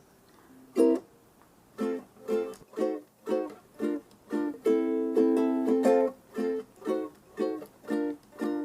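Ukulele strumming chords in an instrumental break of a song: a short pause, a single chord about a second in, then a steady pattern of strummed chords about two a second.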